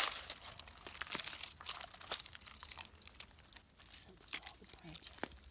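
A dog crunching twigs and dry leaves in its mouth as it rummages on snowy ground: irregular crackling and crunching in short bursts.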